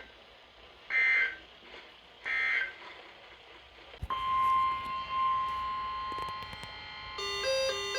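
Short bursts of EAS digital data tones (the SAME code's end-of-message signal), each a harsh electronic screech about half a second long, twice in the first two and a half seconds. About four seconds in, a steady electronic alert tone starts with several pitches held together. Near the end a two-note alternating alarm tone joins it.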